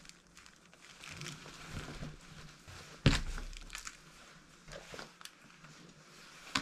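Rustling and crumpling of a fabric pouch and tote bag being handled and packed, with one sharp knock about three seconds in.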